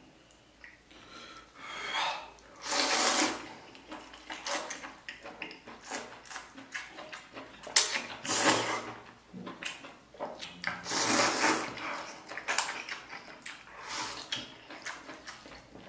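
A person slurping noodles from a bowl in several noisy draws, the loudest near 3, 8 and 11 seconds in, with chewing and mouth sounds between.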